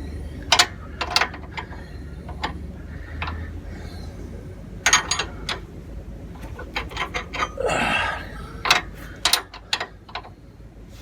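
Metal spanners clicking and clinking against bolts as they are undone, in scattered single knocks with a quick run of clicks about five seconds in and a short scraping rustle near eight seconds.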